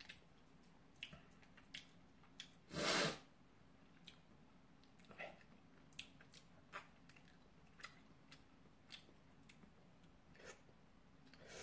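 Quiet eating sounds: soft chewing and small clicks of chopsticks against a bowl, with one louder half-second slurp of ramyeon noodles about three seconds in.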